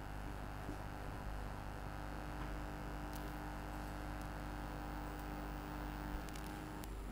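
Steady electrical hum and hiss of room tone, with a few faint clicks; the humming tones drop out just before the end.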